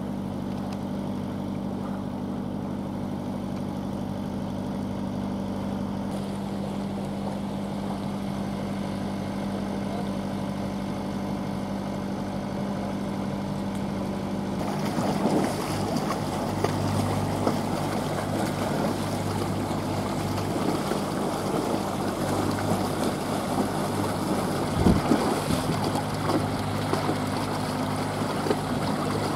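Small outboard motor running at a steady speed, with water rushing past the hull. About halfway through the motor's tone changes and the water and wind noise gets louder.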